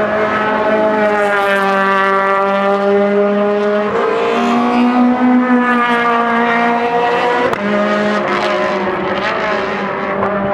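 Car engine running hard at high revs on a race track, one steady, strong note that steps abruptly in pitch twice, about four seconds in and again at about seven and a half seconds.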